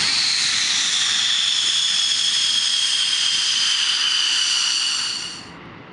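F-15 fighter's twin jet engines running as it taxis: a loud roar with a high whine that slowly falls in pitch, cutting off suddenly about five and a half seconds in.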